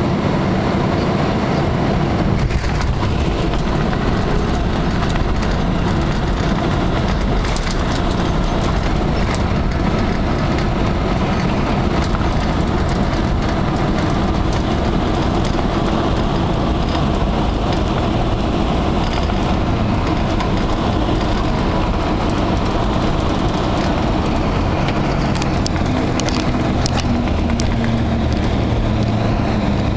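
Boeing 767-200 heard from inside the cabin during the landing roll: a steady, loud roar of engines, airflow and wheels on the runway, with a brief knock a couple of seconds in. Near the end a low tone falls in pitch as the jet slows down.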